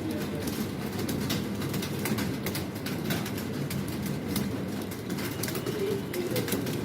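Many computer keyboards being typed on at once, a dense, irregular clatter of key clicks over a steady low hum.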